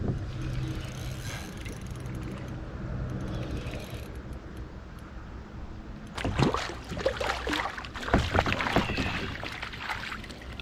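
Spinning reel being cranked as a speckled trout is played on the line. From about six seconds in, irregular splashing as the fish thrashes at the surface beside the kayak and is scooped into a landing net.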